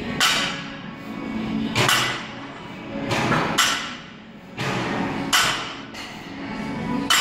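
Barbell with rubber bumper plates touching down on the gym floor at each deadlift rep: a sharp knock about every one and a half seconds, five in all, over background music.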